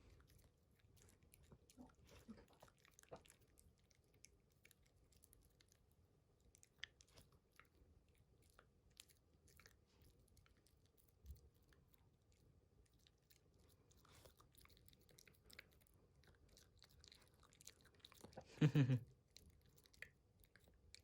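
Shiba Inu puppy chewing banana: faint, repeated wet mouth and teeth clicks. Near the end comes one short, louder voiced sound.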